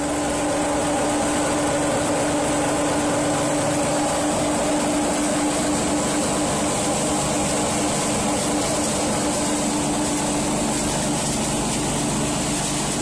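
Poultry feed pellet mill running steadily as feed meal is fed into its hopper: an even, continuous machine noise with a constant hum.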